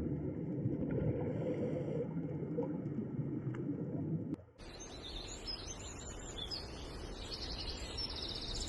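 A low, steady rumbling noise for about four seconds that cuts off abruptly. It is followed by small birds chirping and twittering, with short rising and falling calls and a quick trill near the end.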